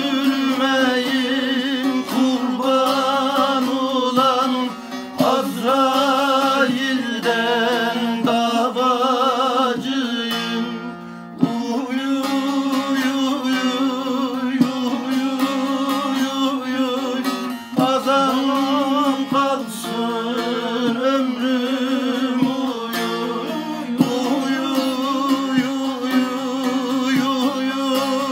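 Man singing long, wavering, ornamented notes while strumming and plucking a bağlama, the long-necked Turkish saz. The music drops briefly about eleven seconds in, then carries on.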